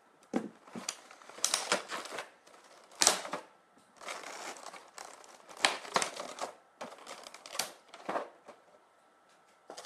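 Clear plastic blister tray of an action-figure package crinkling and crackling as it is handled and opened, in a run of irregular crackles, the loudest about three seconds in.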